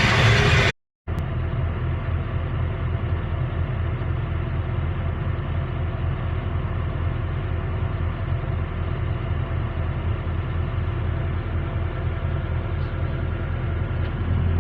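Excavator's diesel engine running at a steady speed, a constant low rumble with an even engine tone. It starts after a brief silent break about a second in.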